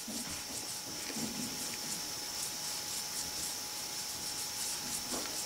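Faint soft rubbing of a wool swab wiping cold gun-bluing solution onto a steel toolmaker's clamp, over a steady faint hiss.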